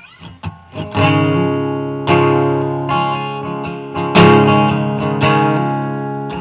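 Acoustic guitar intro: a few light plucks, then full strummed chords about once a second, each ringing out and fading.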